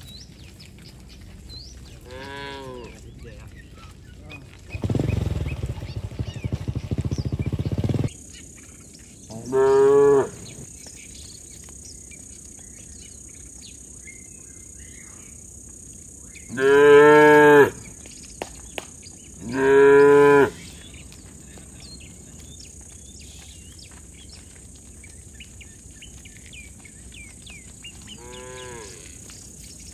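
Cattle mooing on and off: about five drawn-out moos, the two loudest close together past the middle, with fainter ones near the start and the end. A loud, low rushing noise runs for about three seconds from about five seconds in, and a steady high-pitched drone comes in after it.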